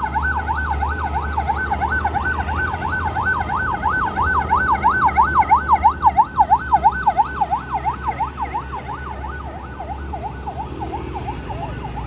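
Police escort siren in a fast yelp, its pitch sweeping up and down several times a second, loudest midway and fading toward the end, over the low rumble of heavy truck engines.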